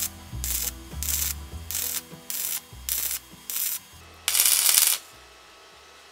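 Stick welding arc on a pipe-to-plate joint, struck and broken in a stitch rhythm: short bursts of arc noise about every half second, then one longer burst a little past the middle, after which the arc stays off.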